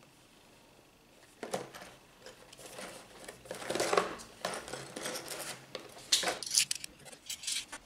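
Small cardboard box handled and turned over in the hands, its surfaces rubbing and scraping, then its end flap worked open with a few sharp tearing snaps near the end.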